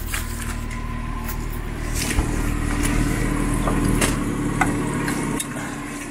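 Jeep Wrangler's engine running, growing louder about two seconds in and easing back near the end, with a few sharp knocks.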